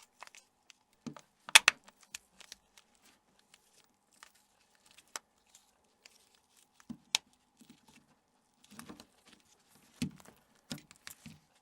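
Plastic housing parts of a Nokia 6290 phone being handled and squeezed together: scattered small clicks and light knocks, the sharpest about one and a half seconds in.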